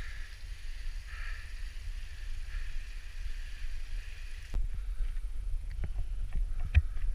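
Wind rumbling on a GoPro microphone, with a mountain stream trickling among boulders for the first few seconds. About four and a half seconds in the sound changes abruptly, and scattered clicks and knocks follow, such as footsteps on stony ground.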